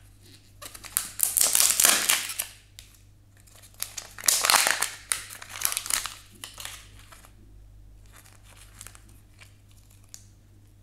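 Kinder Joy egg's wrapper crinkling as it is torn open by its pull tab, in two long bursts. After them come lighter rustles and small clicks as the plastic toy pieces are handled.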